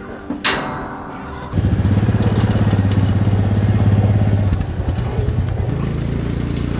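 ATV (four-wheeler) engine running close up with a steady, fast low pulse. It starts abruptly about a second and a half in and carries on lower and quieter near the end.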